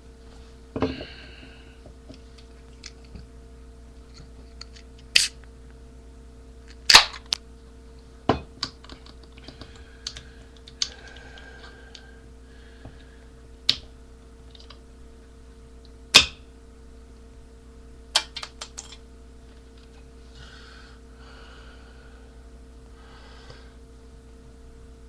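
Sharp clicks and taps at irregular intervals, a few seconds apart, over a steady hum.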